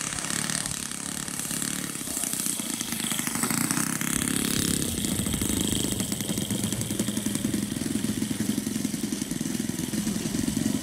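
Radio-controlled model Hawker Hurricane's Laser 150 four-stroke engine throttled back through the landing, its pitch sweeping down then up about three seconds in. From about halfway through it settles into a steady, rapidly pulsing idle as the model taxis on grass.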